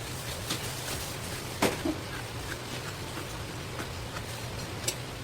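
Scattered light knocks and clicks from knife work on a fish on a cutting board, over a steady low hum.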